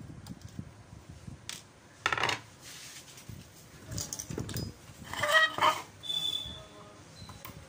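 Metallic clatter and knocks from handling a circuit board and its aluminium heat sink as the two are taken apart. Louder than these, a short pitched call sounds about five seconds in.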